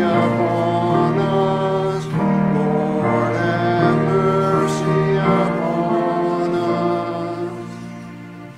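Congregation singing a part of the liturgy with keyboard accompaniment, in sustained chords that change every second or two. The final chord fades away over the last second or so.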